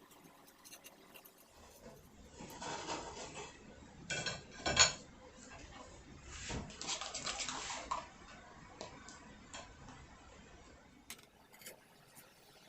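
Kitchen clatter of metal pans and utensils being handled, in bouts, with one loud sharp clank about five seconds in, then only a few faint clicks.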